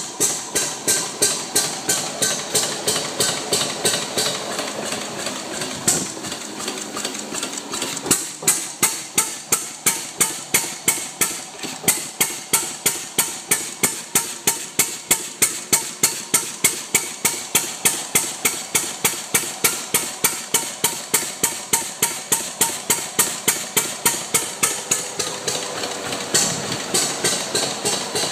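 Rebuilt Arrow C-66 single-cylinder stationary engine running steadily, its firing beat sharp and even at about three strokes a second.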